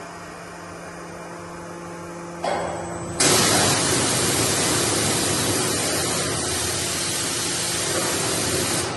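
Pneumatics of an automatic sheet loader for a laser cutter: a loud, steady hiss of air switches on about three seconds in and cuts off abruptly near the end, over a constant machine hum with steady tones.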